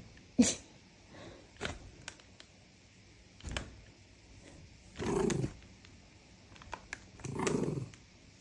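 A pet animal gives two short, rough calls about two seconds apart, with a few sharp clicks or knocks before them.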